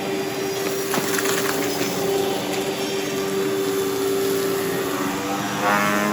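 Miele upright vacuum cleaner motor running steadily on its lower speed, a constant hum over rushing air, with a short change in tone near the end. It is not very good sounding: the motor is dirtied from fine powder picked up while the bag was not seated properly.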